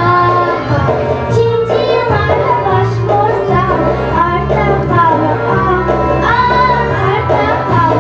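Young girls singing a song into microphones over instrumental accompaniment with a steady bass line.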